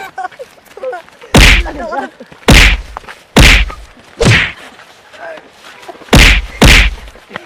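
A run of six heavy whacks of blows landing at uneven intervals, with faint cries from a person between them.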